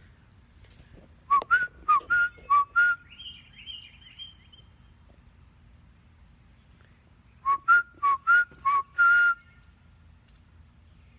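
A man whistling to birds in two quick phrases of short, rising whistled notes: about six in the first and five in the second, the last note held longer. Between the phrases come fainter, higher chirps from a bird.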